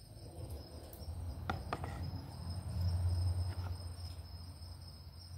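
Crickets chirping steadily in the background, with a low rumble that swells around the middle and fades, and a couple of faint clicks about a second and a half in.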